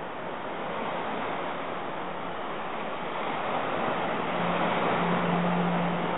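Small waves washing up a sandy beach: a steady rush of surf that swells in the second half as a wave runs in, with a low hum underneath.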